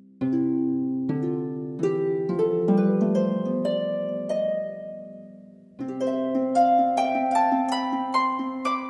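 Background music of plucked-string notes in gentle arpeggios. The first phrase rings out and fades, and a new phrase of notes stepping upward begins about six seconds in.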